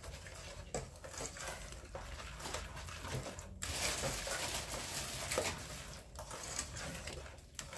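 Apple compote, lemon juice and sugar being stirred in a saucepan, the utensil scraping and clinking against the pan. The stirring gets busier for a couple of seconds in the middle.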